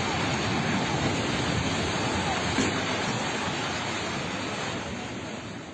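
A six-storey residential building collapsing: a loud, continuous rushing rumble of falling structure and debris that slowly fades near the end.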